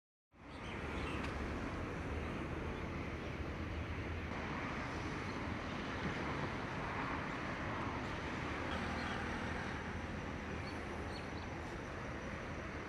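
Steady outdoor street ambience: a continuous wash of distant traffic noise, starting abruptly just after the beginning, with a few faint high chirps near the end.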